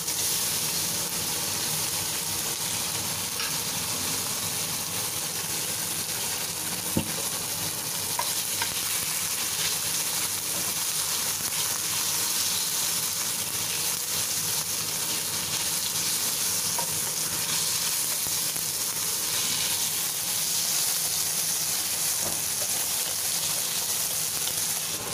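Diced lean pork sizzling steadily as it fries in oil in a nonstick pan, with a few scrapes and taps of a wooden spatula stirring it.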